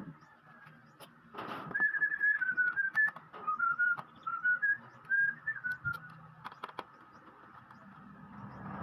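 Someone whistling a short tune of stepped notes, with a few sharp clicks and a brief rustle around it.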